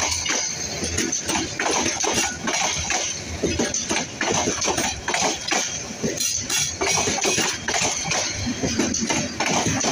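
Passenger coaches of the Tista Express, a Bangladesh Railway intercity train, rolling past close by, their wheels clattering on the rails in a fast, continuous run of knocks.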